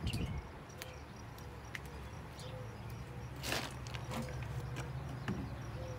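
Faint knocks and rustles from a phone being handled and moved, over a steady low hum, with one louder rustle about three and a half seconds in.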